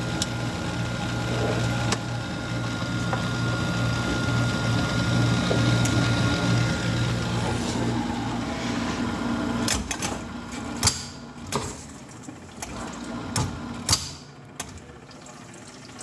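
GE dishwasher running on a newly replaced motor with a steady hum and the sound of water, no longer making its loud motor noise. About ten seconds in the hum stops, and a few clicks and knocks follow.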